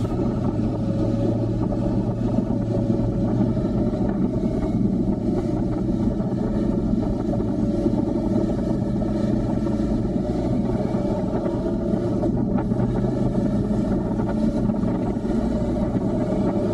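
Motorcycle engine running steadily at an even speed, heard from the rider's seat together with road and wind noise.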